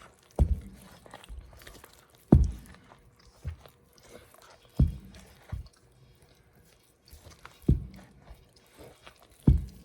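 Bread dough being kneaded by hand: a series of dull thumps as the dough is pushed and dropped against the work surface, one every one to two seconds.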